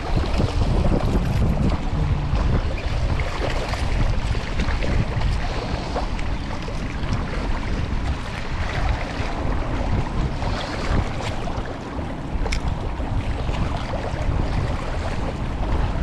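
Wind buffeting the microphone in a heavy low rumble over a steady rush of water, with one short sharp click about twelve seconds in.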